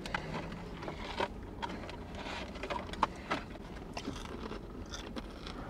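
Faint rustling and crinkling of a paper food wrapper and napkins, with scattered small clicks, as a Korean corn dog is pulled out to be eaten.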